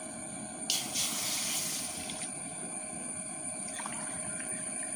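Water poured from a glass into a pan on the stove: a sudden rush of splashing and hiss about a second in, lasting about a second and a half, then a few faint knocks.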